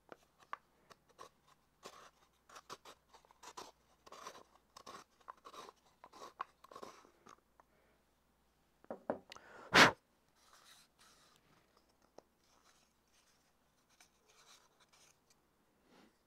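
Wood on wood: a green beech shrink pot and its wooden bottom disc handled and rubbed together as the bottom is tried for fit, a run of small dry scrapes and clicks for about the first eight seconds. One sharp knock about ten seconds in, then only a few faint ticks.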